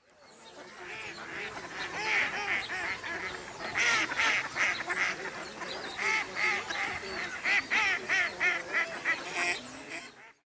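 A flock of ducks calling, with many short overlapping calls, fading in at the start and cutting off near the end.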